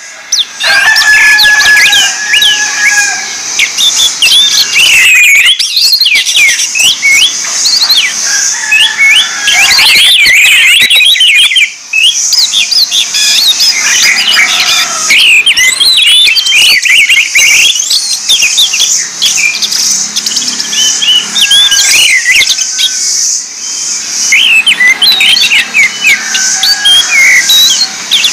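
Several orange-headed thrushes singing at once: a dense, continuous jumble of quick chirps, whistles and trills, with a steady high hiss underneath.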